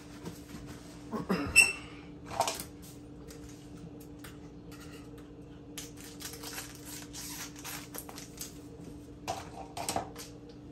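Kitchen clatter of dishes and utensils being handled and set down: a sharp clink with a brief ring about a second and a half in, a second knock just after, lighter rustling, then a few more knocks near the end, over a steady low hum.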